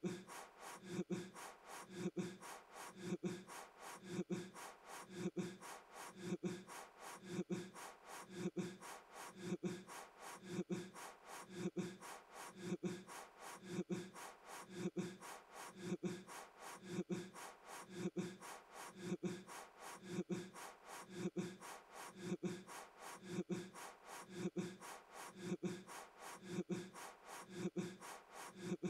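A man's breath puffing again and again as he blows at a birthday candle, about once a second in a perfectly even rhythm, with a slight voiced sound to each puff.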